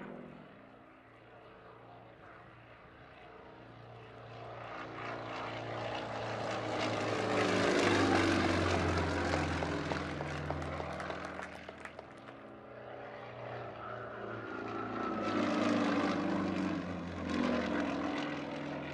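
Single-engine aerobatic propeller plane running at display power. The engine-and-propeller note swells to its loudest about eight seconds in, drops in pitch as the plane goes by, fades, then swells again on a second pass near the end.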